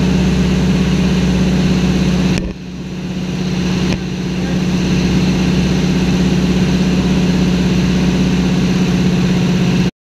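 Light floatplane's engine and propeller running steadily in flight, a loud low hum with wind rush over it. The sound drops sharply about two and a half seconds in and builds back up over the next second and a half.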